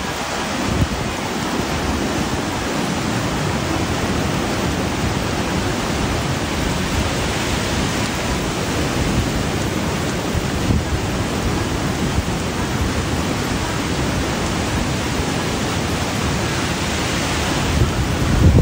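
Loud, steady rushing of water, with a few brief low thumps.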